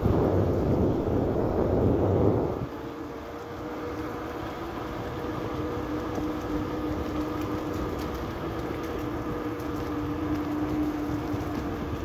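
Bicycle rolling on wet asphalt, with wind loudly buffeting the microphone for the first two and a half seconds, then steadier tyre and riding noise with a faint, steady two-note hum.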